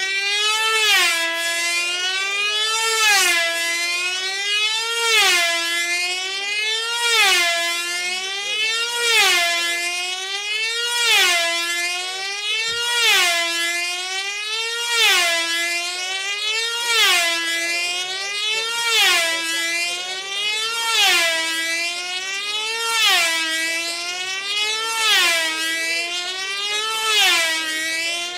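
Open Rat control line racing model aircraft's two-stroke engine running flat out, a high buzzing whine that rises and falls in pitch and loudness about every two seconds as the model laps the circle at racing speed.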